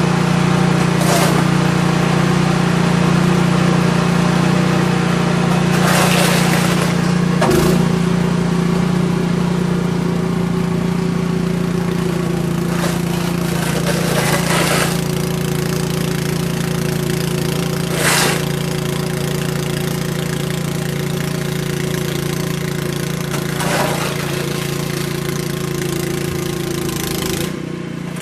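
An engine running steadily at a constant speed with a low hum, broken a handful of times by brief rushing noise bursts.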